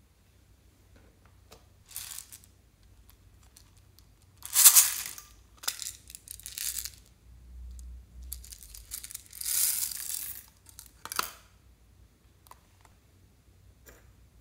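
Small red beads tipped out of a plastic case into slime in a glass dish, a rustling pour lasting about a second and a half. Before it come short clatters of the beads and case being handled, the loudest about four and a half seconds in, and a sharp click follows the pour.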